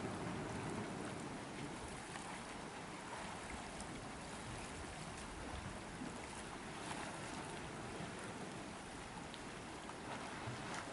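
Steady outdoor seaside noise of wind and moving sea water, with a faint steady hum underneath.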